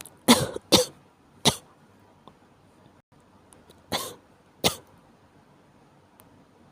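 A person coughing with a cold: three quick coughs, then two more after a pause of about two seconds.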